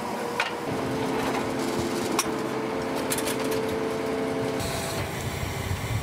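Deck winch hauling the scallop dredge's wire rope: a steady mechanical hum that starts about a second in and cuts off about a second before the end, with a couple of sharp clanks. Wind and sea noise follow.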